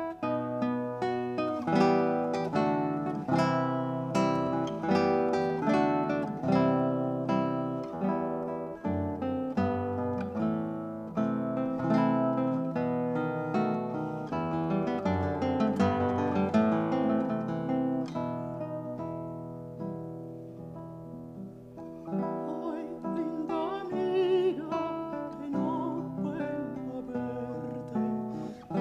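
Classical guitar played solo, a busy run of fingerpicked notes and chords. About twenty seconds in it softens, and near the end a countertenor voice with vibrato comes in over the guitar.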